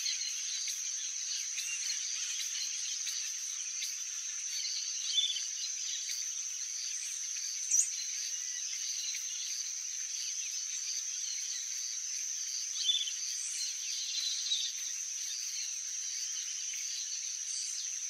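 Steady high-pitched insect chorus, with a few short chirps now and then; the sharpest comes about eight seconds in.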